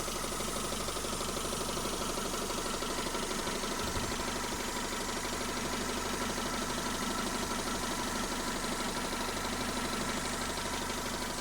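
Mazda Familia engine idling with a fast, even knock running through it, a knock that appeared after the timing belt was replaced. One brief low thud comes about four seconds in.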